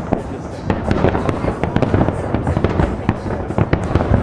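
Aerial fireworks exploding in quick, irregular succession: many sharp bangs and cracks, several a second, over a continuous rumble of distant booms.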